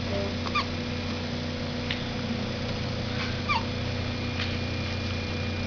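A dog with hiccups making short, high squeaks, about five of them at uneven intervals, over a steady low hum.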